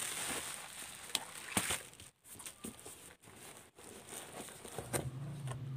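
Cardboard parcel being opened and handled: rustling and crinkling of the box and its packing, with a few sharp clicks and snaps.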